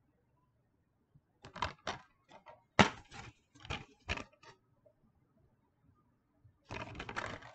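Plastic DVD case being handled and opened: a run of sharp plastic clicks and snaps, the loudest about three seconds in, then a short burst of rustling handling noise near the end.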